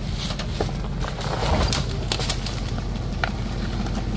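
Hummer SUV engine running low and steady as it crawls over a rocky trail, with scattered sharp clicks and knocks from the tyres and underside climbing over rock.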